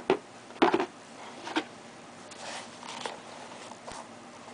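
Rustling and light clicks of the soccer boots and their packaging being handled: a few short knocks early on, then a soft rustle.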